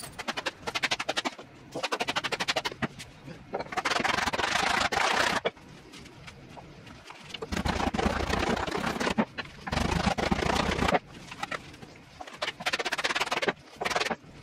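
Wooden mallet pounding the leather pocket of a new Wilson A2000 fastpitch glove in rapid runs of strikes, several a second, with short pauses between runs. This is the glove being broken in to form a deep pocket.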